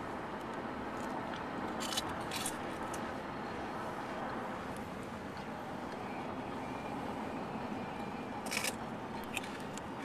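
Steady road and engine noise inside a moving car's cabin, with a few brief crackles about two seconds in and again near the end.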